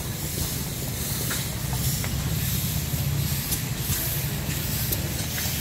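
Minneapolis steam traction engines running, with a steady hiss of venting steam over a low rumble.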